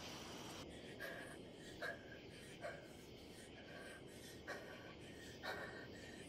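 A woman breathing hard in short, irregular, frightened gasps, about five breaths over the few seconds.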